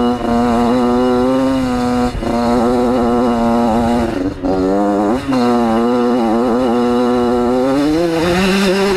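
1994 Yamaha YZ80's two-stroke single-cylinder engine running hard at high revs while riding. Its pitch dips briefly twice, around two and four seconds in, jumps in a quick rev about five seconds in, and climbs again near the end.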